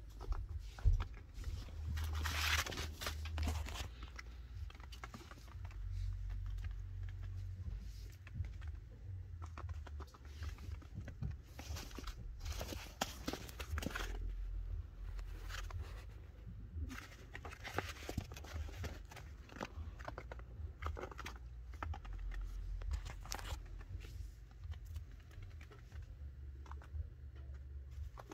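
A chinchilla moving about on a fabric playpen floor: irregular light scratching, rustling and crinkling noises from its feet on the cloth, coming and going throughout.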